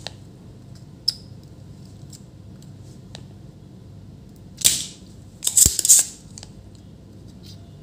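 Spring-loaded desoldering pump (solder sucker) working on a MOSFET's solder joints: a single sharp snap a little past halfway, then a quick cluster of several clacks about a second later.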